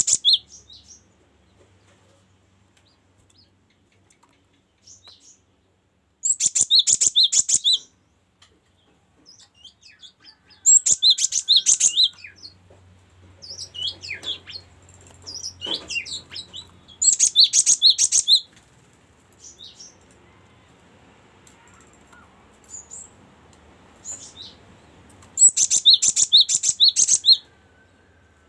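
Cinereous tit (gelatik batu) singing: four loud bursts of rapid, high repeated notes, each lasting one to two seconds and several seconds apart, with softer scattered chirps in between.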